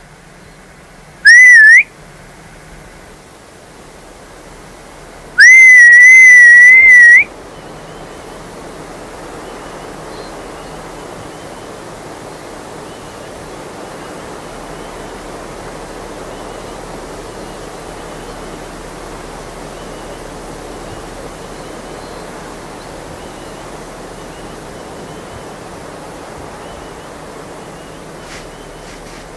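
Two loud whistles near the start: a short one rising in pitch, then a longer one of about two seconds that rises, holds with a slight waver and lifts at its end. After them a steady rushing noise goes on.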